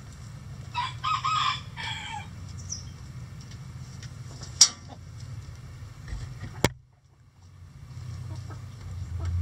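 A rooster crows once about a second in, a call of about a second and a half in two parts, with hens clucking faintly. Two sharp clicks follow about two seconds apart, and the sound drops out briefly after the second.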